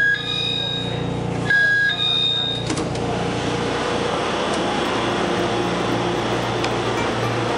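Steady running noise and hum of a TRA EMU500 electric commuter train standing at a station platform. A few short, high electronic beeps sound in the first three seconds.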